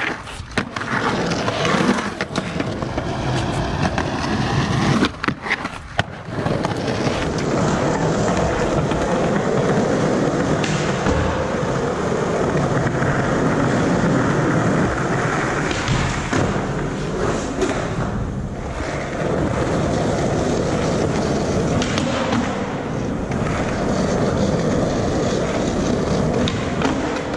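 Skateboard wheels rolling on concrete, with a few sharp clacks of the board in the first six seconds as it pops and lands, then a long steady roll.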